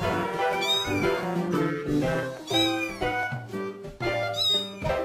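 A cat meowing several times, short calls that rise and fall in pitch, over background music.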